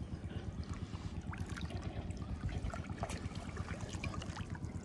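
Canal water sloshing and trickling, with small splashes and drips, over a low, unsteady rumble.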